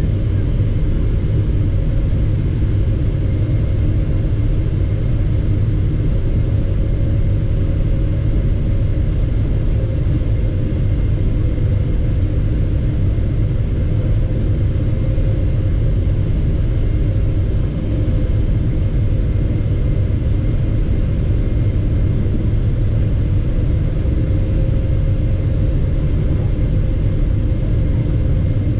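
Cabin noise of a Boeing 777-300ER on final approach, heard from a window seat beside the wing: a steady low rumble of airflow and its GE90-115B engines at approach power, with a steady droning hum above it.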